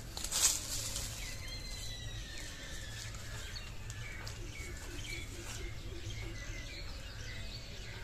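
Birds chirping and calling in short gliding notes over a steady low outdoor background, with a brief rustle about half a second in.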